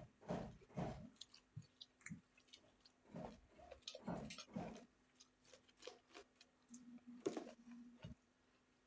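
Chewing and eating rice with spicy egg curry: irregular wet mouth sounds and small clicks, thicker in the first half and thinning out later, over a faint steady hum.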